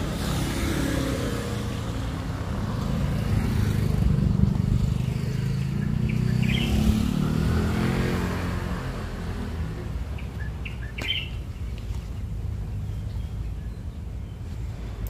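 A motor vehicle passing close by: its engine hum grows louder over the first few seconds, then drops in pitch and fades about eight seconds in, over a steady low traffic rumble. Short bird chirps sound a couple of times.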